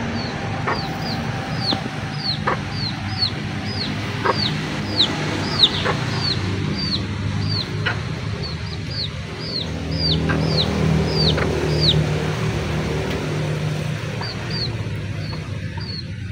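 Chickens peeping: a steady run of short, high peeps that fall in pitch, about two a second, typical of chicks. A few sharp knocks come through, and a lower sound swells louder around ten seconds in.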